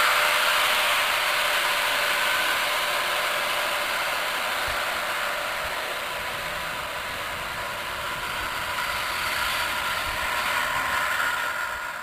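Zip-line trolley running along the steel cable: a steady whirring hiss with a faint whine, easing a little and then swelling again near the end.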